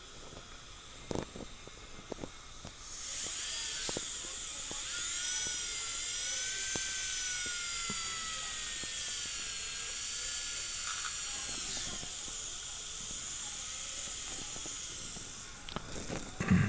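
High-speed dental handpiece (dental drill) whining at high pitch for about twelve seconds, its pitch sagging and recovering as it cuts, here into a broken implant screw. A few faint clicks come before it starts, and a short knock near the end.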